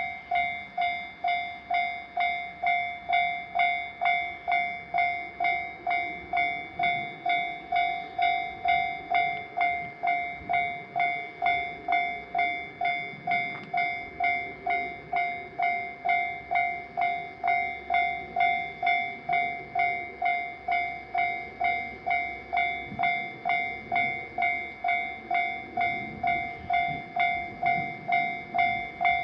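Japanese railroad crossing warning bell ringing, an even, repeating 'kan-kan' of about three strikes every two seconds, each strike a bright ringing tone.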